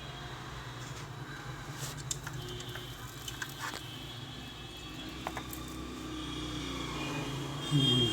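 Steady low rumble of background road traffic, with a few light, sharp clicks over it.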